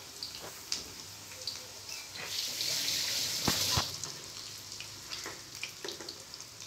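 Batter-coated egg bajjis deep-frying in hot oil in a wok: a steady sizzle with scattered crackles. About two seconds in, the sizzle swells into a louder hiss for about a second and a half, with two sharp clicks near its end as a spoon works among the bajjis.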